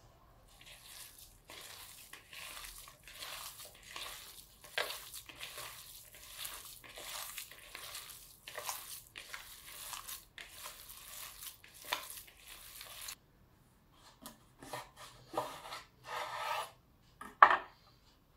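Raw minced meat being kneaded by hand in a plastic mixing bowl: a long run of irregular soft strokes that stops suddenly. Then a few separate knocks of eggplant halves and a knife handled on a wooden cutting board, one sharp and loud near the end.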